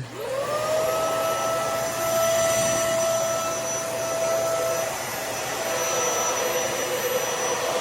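Hoover Air Lift upright vacuum switched on: the motor whines up to speed within about half a second, then runs at a steady pitch with a rush of airflow. The roller brush is not working.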